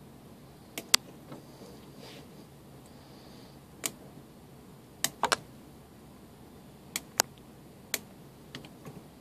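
About ten sharp clicks and snips in small groups from a tool-less RJ45 keystone jack being finished by hand: the jack's plastic cap snapping into place and small cutters trimming the wire ends.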